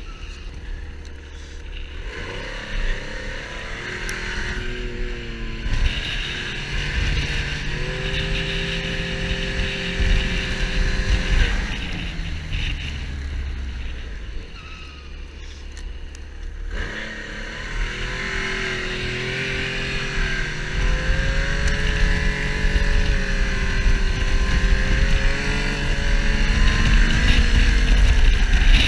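Snowmobile engine running under changing throttle, its pitch rising and falling. It eases off for several seconds in the middle, then picks up and grows louder toward the end.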